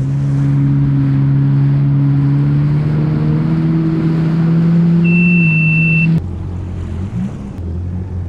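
Yamaha WaveRunner engine running steadily at cruising speed, its pitch creeping up slightly, then dropping to a lower, quieter note about six seconds in as the throttle comes off. The ski is nearly out of fuel. A single high beep sounds for about a second just before the drop.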